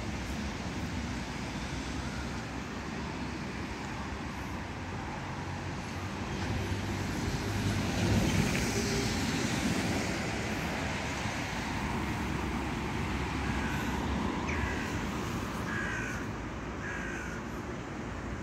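Steady background rumble of road traffic, swelling around eight seconds in. A little past halfway, four short falling animal calls.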